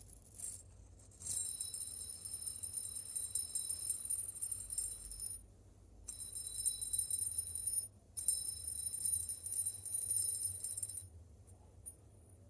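Stainless steel DJG Whisper Spin linkage fidget spinner spinning, giving a high metallic ringing in three stretches of a few seconds each, every one cutting off suddenly.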